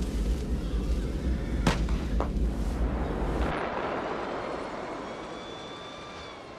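M1 Abrams tank on the move: a heavy, steady rumble with two sharp cracks about half a second apart near the middle. About three and a half seconds in the rumble drops away to a fainter sound with a thin high whine.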